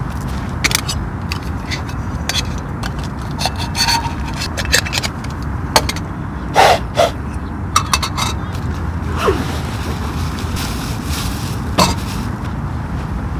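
Scattered clicks, knocks and short scrapes of camping items being picked up and set down on a wooden picnic table, over a steady low rumble.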